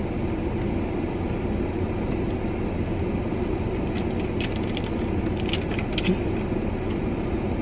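Steady rumble and hiss inside a parked car with the engine idling and the air conditioning blowing on max, with a few light clicks about four to six seconds in.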